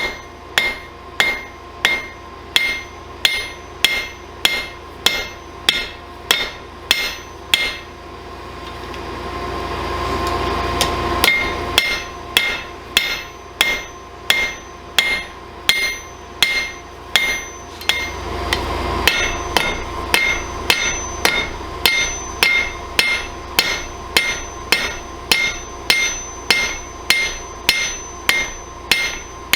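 Hand hammer forging a hot railroad spike on an anvil: steady, evenly paced blows about two a second, each with a short metallic ring. The hammering stops twice, for about three seconds from about eight seconds in and briefly near nineteen seconds, while a rising rushing noise swells.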